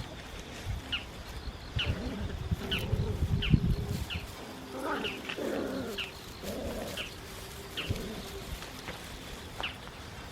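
A bird repeats a short, high, down-slurred chirp roughly every second, over scuffling and low thumps of a puppy tugging and chewing at a tree root. The scuffling is busiest about two to four seconds in.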